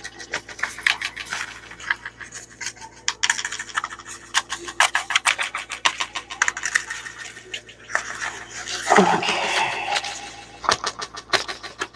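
Paper and thin card of a vintage stapled children's book rustling, scratching and crackling as its cover and pages are handled and peeled apart, with a louder stretch about nine seconds in.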